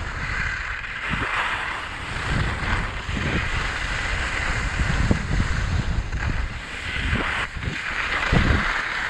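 Skis hissing and scraping over groomed snow on a downhill run, the hiss swelling and fading through the turns, with wind buffeting the action camera's microphone.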